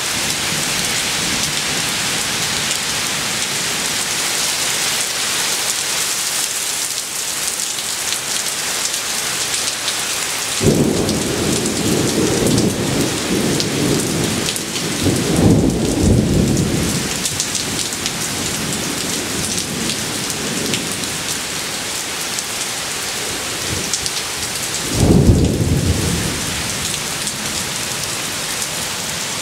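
Heavy rain pouring steadily, with thunder. A rumble breaks in suddenly about ten seconds in and rolls on for several seconds, swelling midway. A shorter thunderclap comes near the end.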